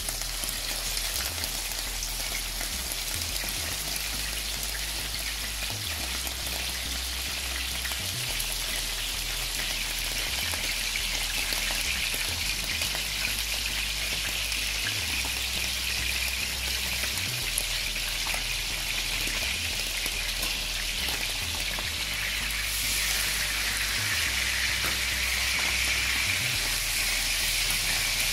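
Pieces of larded beef searing in hot lard in a commercial tilting frying pan: steady crackling sizzle that grows louder about three quarters of the way through.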